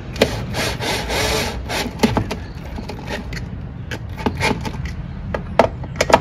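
Hand work with tools: a rasping scrape lasting about a second, starting about half a second in, among scattered sharp knocks and clicks, over a steady low rumble.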